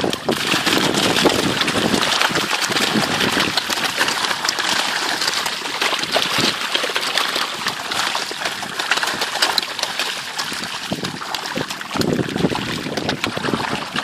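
Continuous, dense splashing and churning of water as a crowded school of farmed snakehead fish thrash at the surface, feeding.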